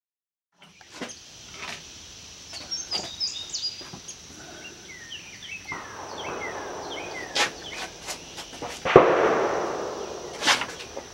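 A single loud, sharp bang about nine seconds in, trailing off over more than a second, with a few lighter sharp clicks around it. Birds chirp and a steady high insect buzz runs underneath.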